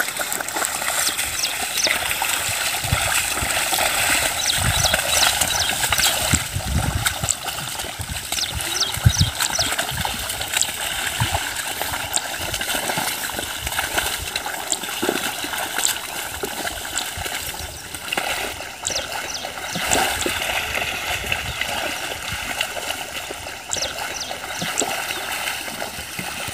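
Muddy water splashing and sloshing as a bull drags a plough through a flooded paddy field, with occasional low thuds.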